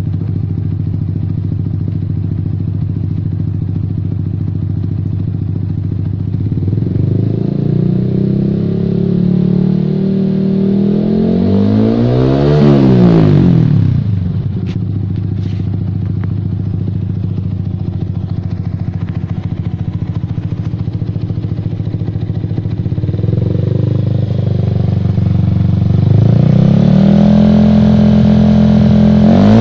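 Yamaha R15 V3's single-cylinder engine breathing through an aftermarket knock-off M4 slip-on muffler, idling on the stand. It is revved up slowly to a sharp peak about halfway and drops back to idle with two sharp clicks, then climbs again to a held faster idle and is blipped once more at the very end.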